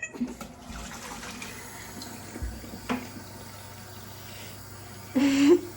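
Kitchen tap running steadily while water is measured into a tablespoon, with a single sharp click about three seconds in. A short vocal sound comes near the end.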